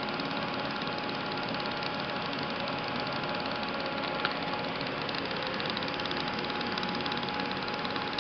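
TIP TIG (hot-wire TIG) arc welding Inconel 800 pipe with Inconel 82 filler wire fed continuously into the puddle: a steady arc hiss and buzz with a steady hum underneath. A single click about four seconds in.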